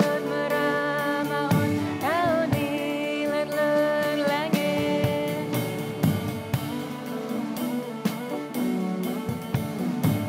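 Sape', the Bornean boat-lute, plucked in a repeating pattern over steady drone notes, with a woman singing a held melody with vibrato for a few seconds in the middle.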